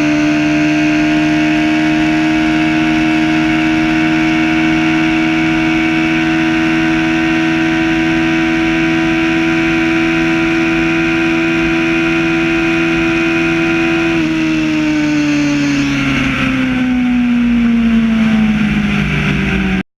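Motorcycle's inline-four engine held at high, steady revs under wind rush, then falling in pitch over the last few seconds as the bike slows, and cutting off suddenly just before the end.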